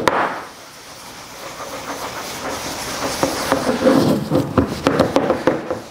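Cloth rag scrubbing Danish oil into an oak mallet head: a scratchy hiss that builds into quick back-and-forth rubbing strokes about halfway through, opening with a knock.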